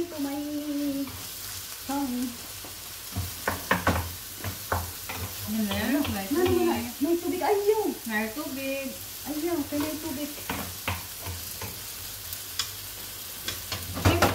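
Chicken breast strips sizzling in a frying pan on a gas stove, with a wooden spatula scraping and knocking against the pan as they are stirred. A voice is heard at the start and for a few seconds in the middle.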